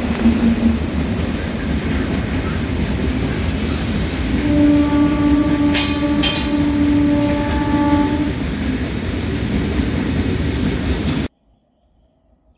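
Indian Railways express train running past at speed, a loud, dense rumble of wheels and coaches. A locomotive horn sounds one long blast from about four and a half seconds in until about eight seconds. The sound cuts off abruptly near the end.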